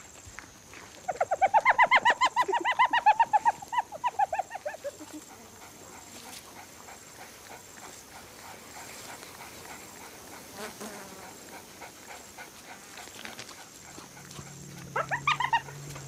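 A cheetah chirping: a rapid string of short, high, yelping calls, about eight a second, for some four seconds, falling in pitch and fading out. The calls come as a hyena approaches the cheetahs' kill. A shorter burst of similar calls starts near the end.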